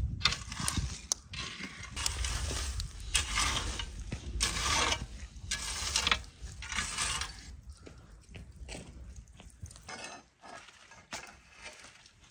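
A long-handled metal hoe raking and stirring glowing charcoal in a pit tandoor: repeated scraping, crunching strokes about once a second. The strokes die down after about seven seconds, leaving scattered clicks and crackles.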